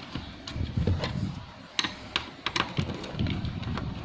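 Small parts of an opened laptop being handled: scattered sharp clicks and taps, with low rubbing and handling noise in between.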